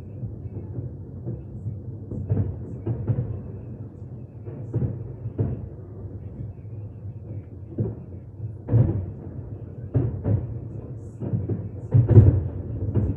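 Aerial fireworks shells bursting in quick, irregular succession with deep booms. Heavier bursts come near the end.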